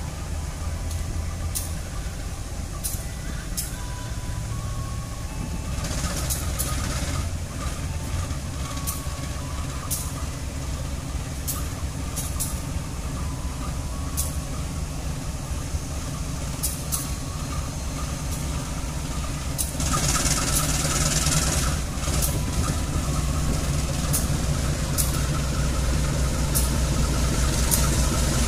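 Diesel-electric locomotive engine running with a steady low hum as the locomotive creeps closer, growing slightly louder toward the end. Two spells of hiss come through, about six seconds in and again about twenty seconds in, along with scattered light clicks.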